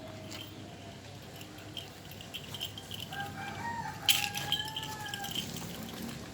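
A rooster crows once, a single drawn-out call of about two seconds starting around three seconds in. A sharp click sounds partway through the crow.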